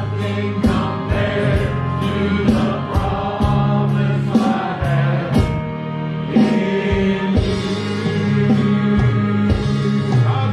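Live gospel music: a small group of singers with microphones, backed by keyboard, electric guitar and drums keeping a steady beat.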